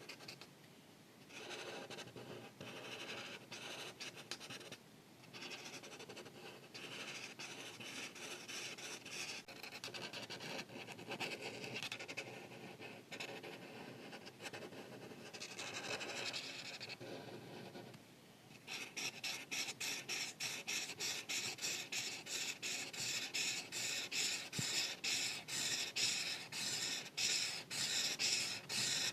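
Art marker tip scratching across paper in coloring strokes, with a few short pauses. About two-thirds of the way in it turns to quick, louder back-and-forth strokes.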